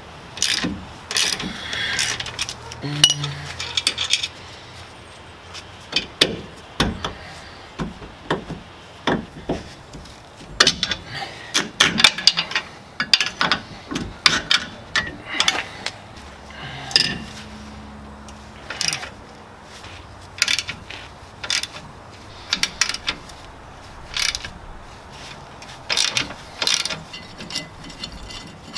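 Hand ratchet wrench clicking in bursts while the rear leaf-spring U-bolt nuts are worked loose, with clinks of metal tools between bursts.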